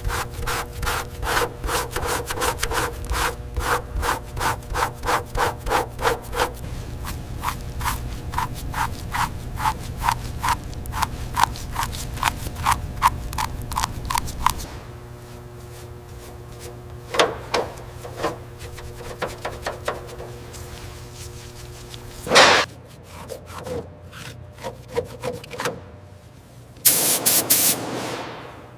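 Rhythmic back-and-forth rubbing strokes of a hand tool on a surface, like hand sanding or filing, about three or four strokes a second for roughly fifteen seconds. They stop, followed by a few scattered knocks, one loud hit about 22 seconds in, and a short scraping burst near the end, over a steady low hum.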